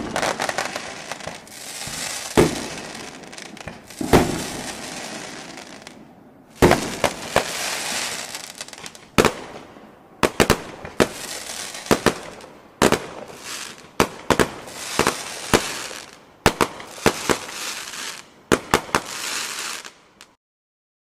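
Consumer ground fireworks going off: a hissing spray of sparks broken by many sharp, irregular pops and crackles. It stops suddenly near the end.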